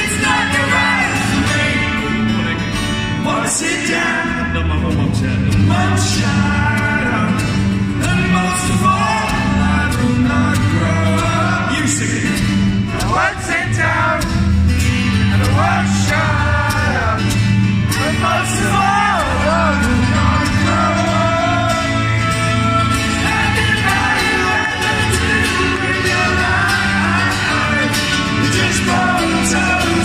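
A man singing into a microphone while playing an acoustic guitar, amplified through a PA in a large hall.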